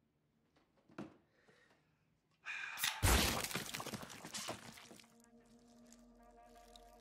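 Screen sound effect of a man's body exploding in gore: a short knock about a second in, a rising crackle, then a loud sudden burst at three seconds with spatter that dies away over about two seconds. A low held music chord comes in near the end.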